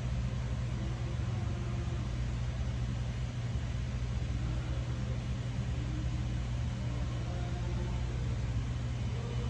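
Steady low mechanical hum of running plant machinery, with faint wavering tones above it and no clear tool knocks.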